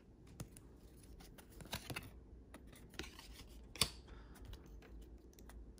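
Pokémon trading cards handled in a stack: faint soft clicks and light scraping of card against card, with one sharper click just before four seconds in.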